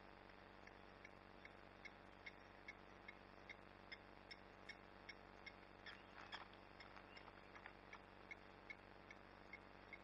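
Blacksmith lapwing's alarm call, faint in the distance: short metallic 'tink' notes repeated evenly, about two and a half a second, with a brief busier patch of calls about six seconds in. It is an alarm raised at the people nearby.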